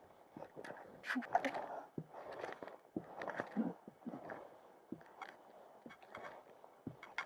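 Footsteps of a hiker climbing a rocky mountain trail: irregular crunching and scraping steps with sharp clicks in between, about one or two a second.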